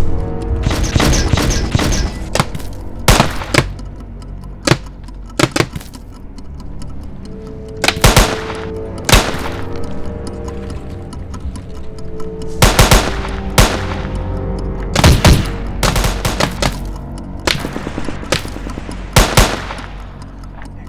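Gunfire: irregular single shots and short bursts of several rounds, over a sustained music score.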